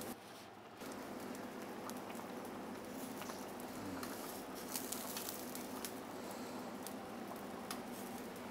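Large pot of meat-and-vegetable stew at a rolling boil on a gas burner: soft bubbling and popping over a steady low hum.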